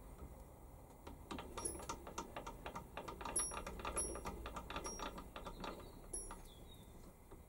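Warco WM180 lathe slide being wound along by its handwheel, giving a rapid run of small mechanical clicks and rattles that builds about a second in and dies away near the end, with a few brief high squeaks over it.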